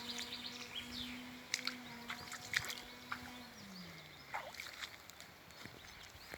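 A distant motor hums at a steady pitch, then drops in pitch and dies away about three and a half seconds in. Short chirps and light clicks come and go over it.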